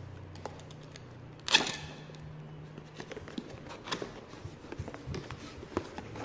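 A cardboard gift box being opened by hand: one sudden loud sound about a second and a half in as the clear sticker seal on the lid flap is pulled free, then light taps, scrapes and paper rustling as the lid is lifted and the packaging inside is handled.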